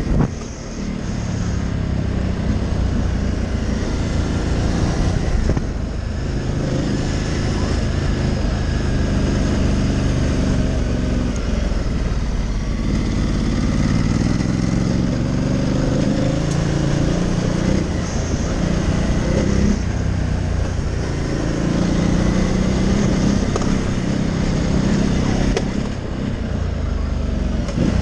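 Ducati Multistrada 1200 Enduro's Testastretta L-twin engine running under way, its pitch rising and falling again and again as the throttle is opened and closed, over a steady rushing noise.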